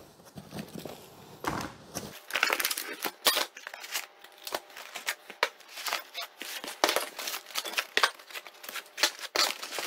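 Parts and packaging being pulled out of a cardboard box: irregular rustling with light clicks and knocks.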